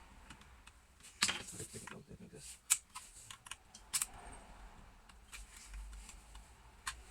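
Small sharp plastic clicks and brief rustles as internal cable connectors are pulled from a laptop motherboard by hand. The clicks are scattered and irregular, the sharpest one a little under three seconds in.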